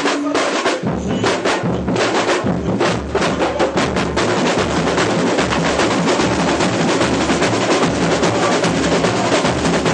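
Samba school bateria playing a full batucada: dense, driving snare drums and other percussion, with deep surdo bass drums pulsing in about a second in.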